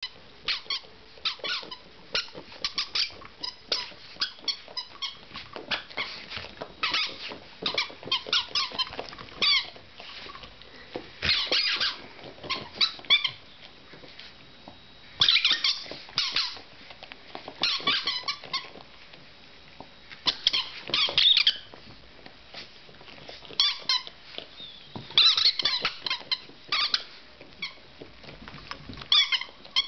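Rubber squeaky toy being squeezed and chewed by dogs, giving runs of short, high squeaks that bend in pitch, in bouts separated by brief pauses.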